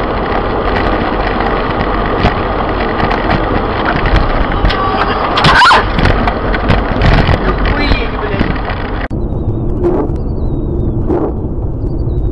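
Car cabin noise heard through a dashcam: road and engine noise on a wet road, with a loud jolt or bang about five and a half seconds in as the car slews off course. After a cut about nine seconds in, a duller, lower road and engine rumble follows.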